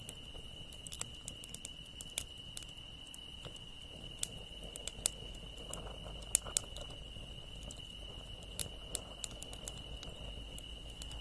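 Wood campfire crackling with irregular sharp pops, the loudest about six seconds in, over steady high-pitched insect trilling such as crickets.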